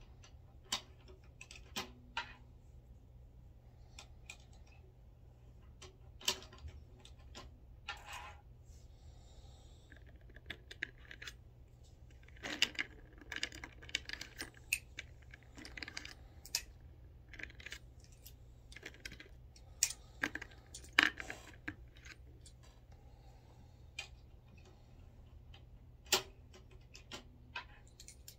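Small brass rifle cases (300 Blackout) clicking and clinking as they are handled and worked through a Lee C reloading press with a flaring die. The clicks come at irregular spacing, busier in the middle, over a steady low hum.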